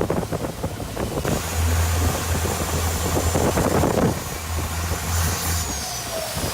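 Boat engine running with a low, steady hum under a rush of water and wind; the hum drops away near the end.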